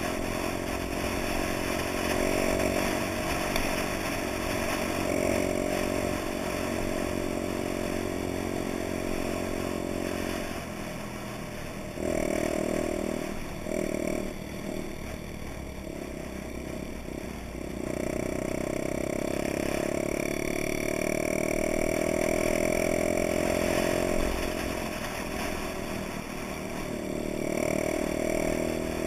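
Honda Dax's small four-stroke single-cylinder engine running under way. About halfway through, the throttle is eased and picked up again several times, then held open steadily.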